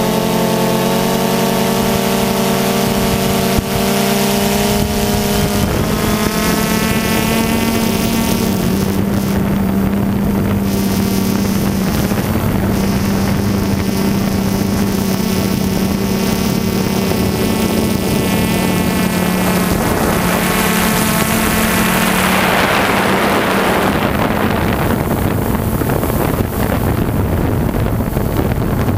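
DJI quadcopter's electric motors and propellers buzzing steadily, their pitch shifting as the drone manoeuvres. A rush of wind noise comes in about three quarters of the way through.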